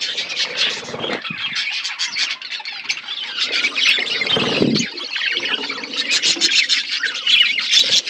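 A flock of budgerigars chattering and chirping without pause in quick, high warbling calls, with a harsher, lower squawk about halfway through.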